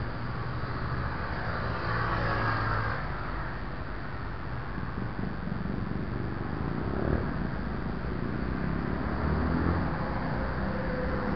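Mountain bike riding over a dirt trail: a steady rumble of tyres and frame with wind on the microphone.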